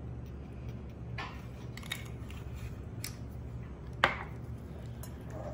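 Wooden spoon stirring a thick dip in a glass mixing bowl, with scattered light clicks and knocks against the glass. One sharper knock comes about four seconds in.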